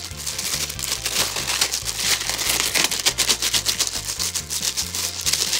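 A glove being pulled onto a hand, a fast run of crinkling and crackling, over background music.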